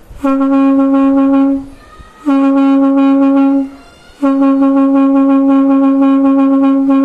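Conch shell (shankh) blown in three blasts at the same steady pitch: two of about a second and a half each, then a longer held one.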